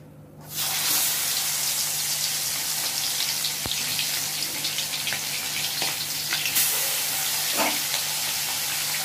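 Turmeric-and-salt-coated koi fish (climbing perch) sliding into hot mustard oil in a wok. The oil bursts into a loud sizzle about half a second in and keeps frying steadily, with scattered crackles.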